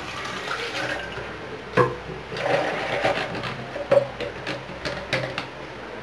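Water poured and sloshing into a bowl of yogurt and gram-flour mixture as it is mixed, with a few sharp knocks of the bowl or utensil against the counter.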